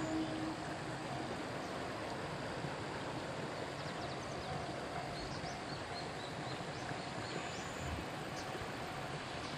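Steady outdoor background noise with a few short, high bird chirps about halfway through, and a faint repeating tone in the background from about a third of the way in.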